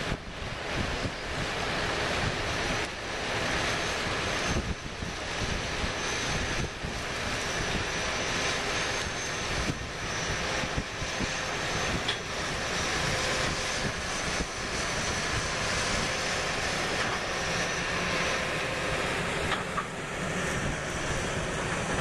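Steady drone of seed corn harvesting machinery, the engines of the corn picker and tractors in the field, with wind buffeting the microphone in the first few seconds. A faint high whine rides above it and fades out near the end.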